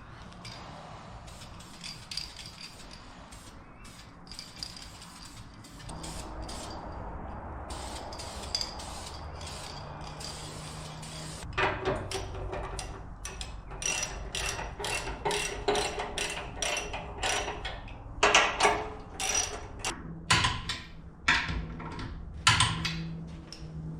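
Ratchet wrench clicking in irregular runs with metal knocks, as bolts are worked on a steel bumper. For the first half only a low steady hum is heard; the clicking starts about halfway through.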